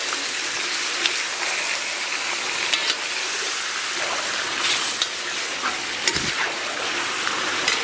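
Beef rib chunks sizzling in hot oil in a wok, stir-fried with a metal spatula, with a few sharp clicks and scrapes of the spatula against the pan.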